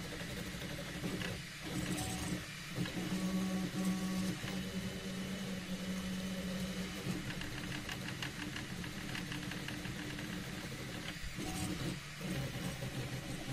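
Desktop 3D printer running: its stepper motors whine at steady, shifting pitches as the print head and bed move, with a few brief pauses where the moves change.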